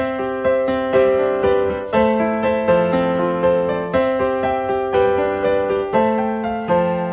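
Background piano music: a slow, gentle melody of single struck notes that fade, about two a second.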